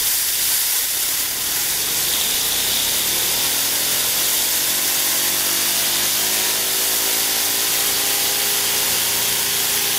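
Compressed air hissing from an air blow gun into a homemade Tesla turbine of stacked thin stainless-steel discs, with a whine that starts about two seconds in and rises steadily in pitch as the disc pack spins up to high speed.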